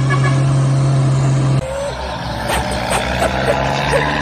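Heavy diesel machinery engine sound effect: a steady low drone that cuts off abruptly about a second and a half in, giving way to a rougher-sounding truck engine running, with a few faint clicks.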